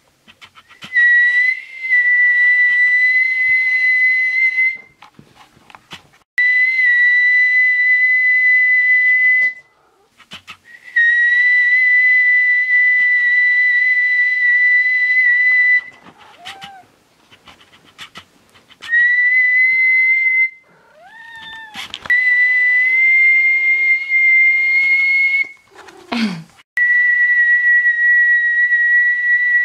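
Six long, steady whistled notes, each held for two to five seconds at the same high pitch, used to call a cat. In the gaps a cat meows briefly a couple of times, the last call falling steeply in pitch, and there are a few light clicks.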